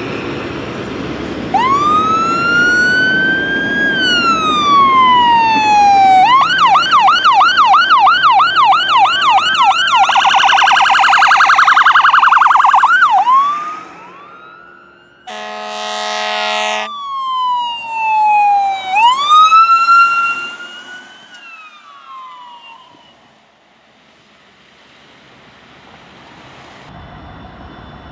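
Fire truck electronic sirens: a wail rising and falling, switching to a yelp at about two cycles a second and then a rapid warble that cuts off about 13 seconds in. A horn blast of about a second and a half follows, then a second siren wail that rises, falls and fades away.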